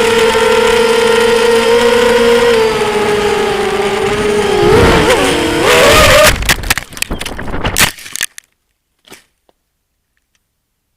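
FPV racing quadcopter's brushless motors whining steadily with wind noise on the microphone. The pitch wavers and climbs about five seconds in, then the sound breaks up into choppy bursts and cuts off about eight seconds in, followed by one faint tick.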